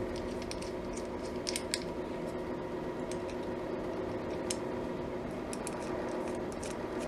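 Light, scattered clicks of small metal parts being handled as a rivet is fitted into a hole in a radio chassis, over a steady low hum.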